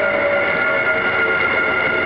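Kintetsu Nara Line electric train running past, a steady rush of running noise with a steady high-pitched whine over it.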